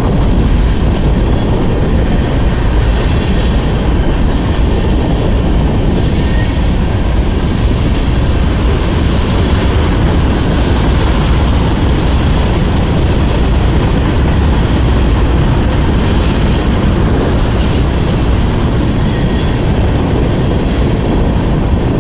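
Cars of a mixed freight train rolling past close by: a loud, steady rumble of steel wheels on the rails.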